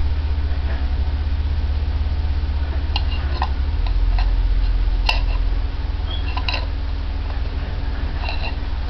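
Steady low rumble of a garbage truck's engine outside the house. Over it, about five light clinks as a toy spoon and plastic teapot are knocked together.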